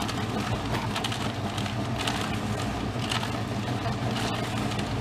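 A small engine-driven machine running steadily with a constant low drone, overlaid by gritty crunching and scattered sharp clicks.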